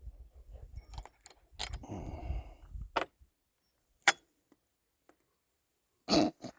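Small metal chainsaw clutch parts being handled: scattered clinks and rustling, with two sharp ringing metallic clicks about three and four seconds in, and a louder brief knock near the end.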